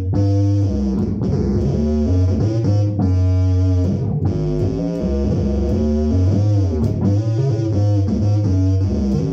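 Electric bass guitar played through a Phil Jones Bass amplifier: a slow improvised line of sustained low notes, some of them sliding in pitch.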